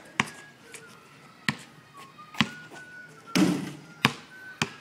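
Basketballs bouncing on an asphalt driveway: about five sharp, separate bounces, irregularly spaced, with a louder, longer crash about three and a half seconds in.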